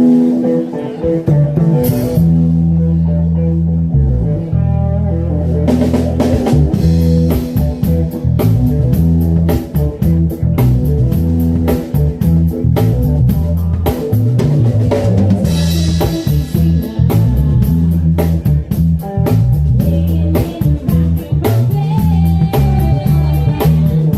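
A live band with guitar, bass and drum kit playing a groove at a sound check; the drums come in about six seconds in.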